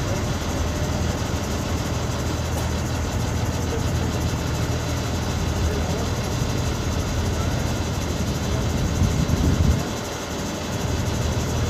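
Heavy truck engine idling steadily as a low hum, with indistinct voices alongside.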